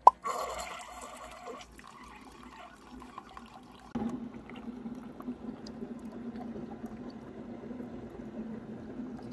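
Single-serve pod coffee maker brewing: a brief sharp sound at the start, a short burst of hissing machine noise, then from about four seconds in a steady stream of coffee pouring into a double-walled glass mug over a steady low hum.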